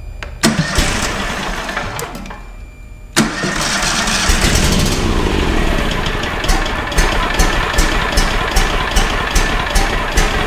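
Bandit SG-40 stump grinder's gasoline engine starting: it catches about half a second in and fades out by about three seconds, then starts again and keeps running steadily. From about six seconds a regular tick comes about twice a second. The owners later suspect a thrown rod or a hole in the block, as it blows oil, though it makes no loud clatter.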